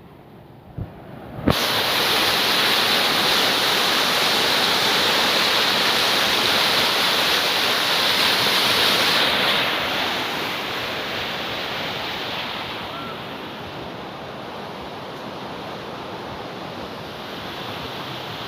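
Floodwater rushing over a waterfall: a loud, steady wash of water noise that cuts in suddenly after a sharp click about a second and a half in, then eases a little about halfway through.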